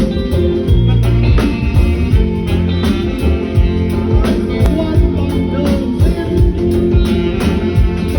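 A live band playing amplified music: steady bass notes, regular drum hits and guitar.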